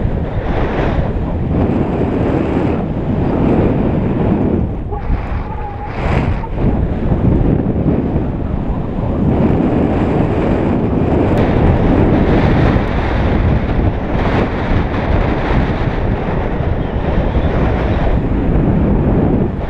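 Airflow buffeting the microphone of a camera carried on a paraglider in flight: a loud, steady rush of wind noise that swells and eases, briefly dropping about five seconds in.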